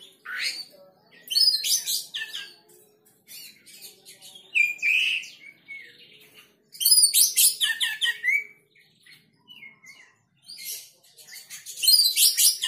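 Oriental magpie-robin singing: loud phrases of quick, varied whistles and chattering notes, each a second or so long, with short pauses between.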